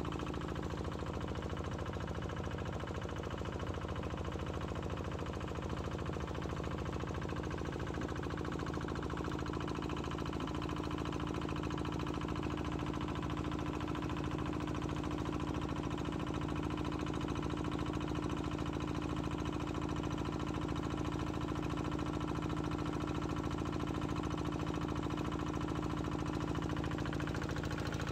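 A small fishing boat's engine running steadily as the boat cruises, an even hum with one strong steady pitch.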